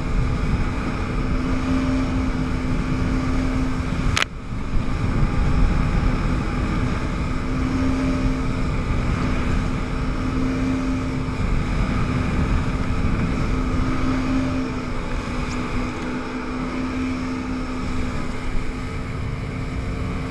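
Yamaha WaveRunner jet ski engine running steadily at speed with a constant hum, over a rushing noise of water and air. About four seconds in there is a sharp click and a brief dropout.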